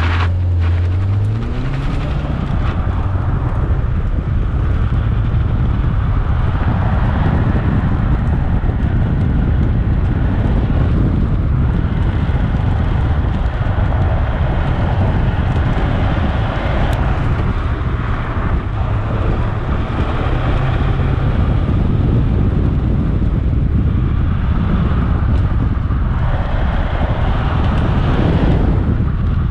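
Honda Civic Type R's turbocharged four-cylinder engine pulling away from the start, its pitch rising about a second in, then revving up and down through an autocross run. Wind buffets the microphone mounted on the outside of the car.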